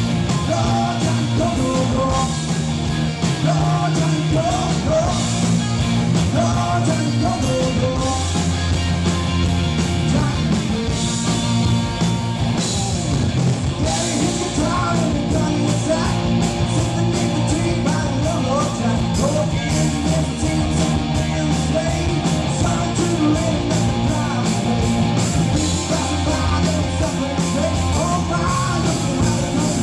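Rock band playing live, with a singer and steady drums and cymbals.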